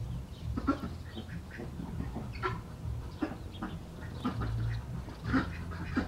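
Ducks quacking and calling in many short, scattered calls, over a steady low drone of city traffic.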